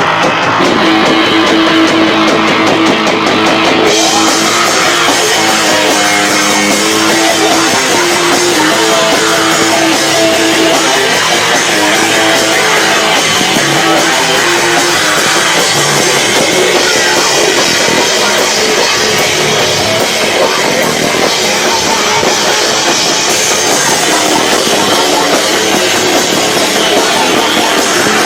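A live rock band playing loud, with drum kit and guitar, recorded through a camcorder microphone that is overloaded by the volume. The loudness stays steady throughout.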